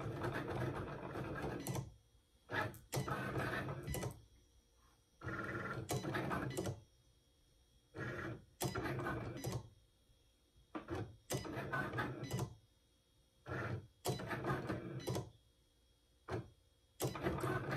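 Cricut Explore Air 2 cutting machine cutting cardstock: its motors run in short start-stop bursts, about a dozen, with brief silences between, as the blade carriage and mat rollers move through the cut.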